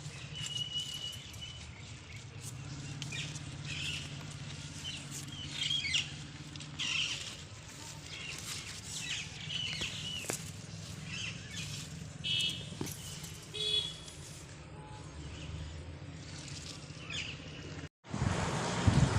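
Birds chirping and calling in many short calls, one held whistle near the start and quick repeated notes past the middle, over a low steady hum. The sound cuts out briefly near the end.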